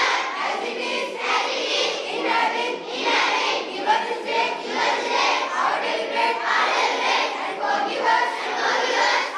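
A large group of schoolchildren singing a prayer together in unison.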